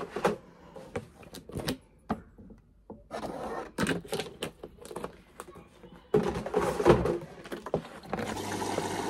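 Plastic detergent bottles being picked up, handled and uncapped: a series of sharp clicks, knocks and scrapes, busier from about six seconds in. Near the end a steady rushing sound with a low hum begins and keeps going.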